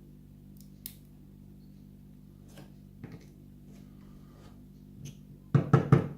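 Small clicks from handling a pin tumbler lock as the last pin stack and its spring are taken out of the back of the cylinder, then a quick cluster of loud knocks near the end.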